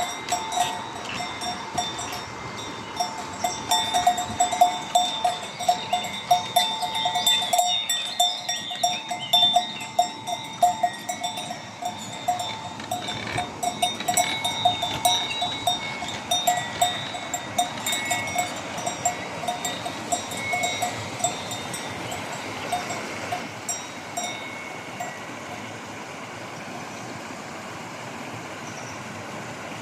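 Bells on grazing livestock clanking irregularly and continuously over the steady rush of a stream. The bells thin out and fall silent about 25 seconds in, leaving only the running water.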